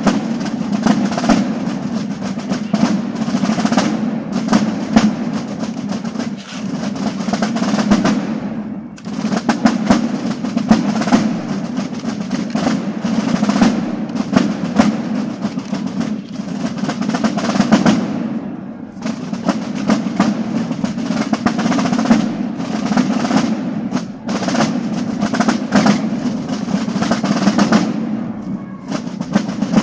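A marching corps of Basel drums, the large rope-tensioned wooden Fasnacht side drums, playing a march in unison. It is drums alone with no piccolos, a steady run of rolls and sharp strokes with a few brief breaks between phrases.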